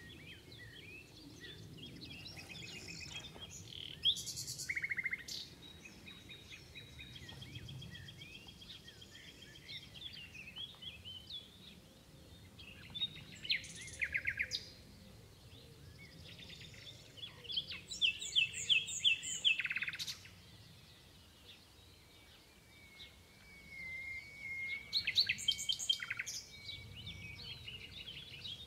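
Common nightingale singing in separate phrases of rapid repeated notes, trills and whistles, about five phrases with short pauses between. A steady low rumble of background noise runs underneath.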